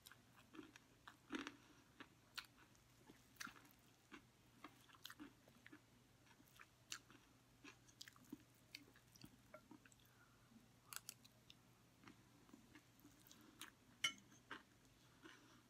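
Quiet close-up chewing of chatpate, a spicy snack of puffed rice, chickpeas and potatoes, as a string of small crisp crackles and mouth clicks. A metal spoon scoops across the plate between bites, with a sharper clink about 14 seconds in.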